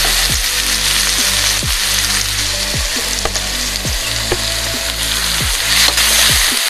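Food frying in hot oil in a pan, a steady dense sizzle, with electronic background music carrying a low repeating beat underneath.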